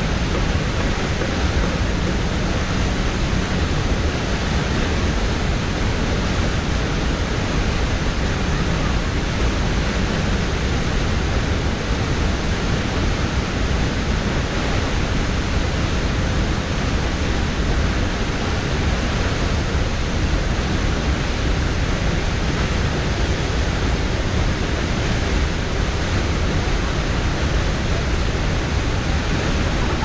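Huka Falls: the Waikato River pouring out of its narrow volcanic-rock ravine over the falls into the churning pool below, a steady, loud roar of rushing water that does not change.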